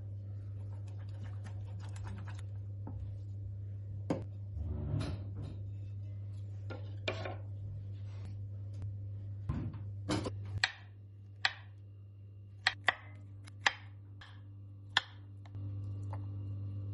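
Scattered light clicks, taps and short scrapes of small objects being handled on a hard surface, over a steady low hum. The hum drops out for about five seconds past the middle, leaving five sharp separate clicks, then returns near the end.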